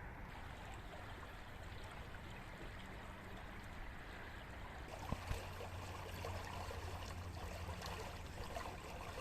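Faint trickling and lapping of water, with two brief knocks about five seconds in.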